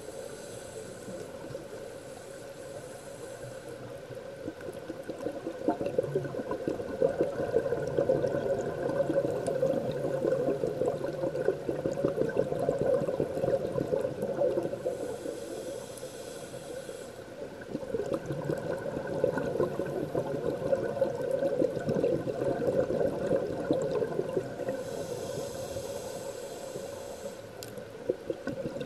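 Scuba diver breathing through a regulator underwater: three slow hissing inhalations, each followed by a long, louder stream of bubbling exhaust bubbles.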